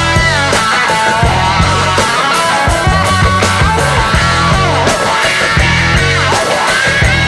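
Rock music with guitar, its notes bending up and down in pitch over a steady bass.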